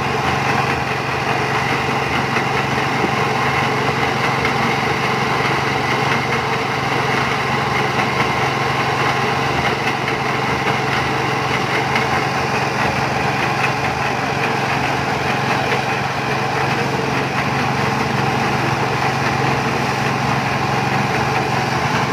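Small engine running steadily, driving a concrete mixer.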